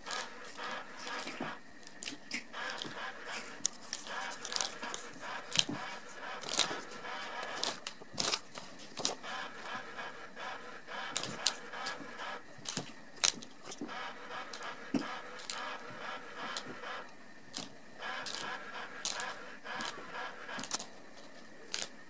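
Light jingling and clicking from a dangling wand cat toy as kittens bat and grab at it, in many small irregular clicks.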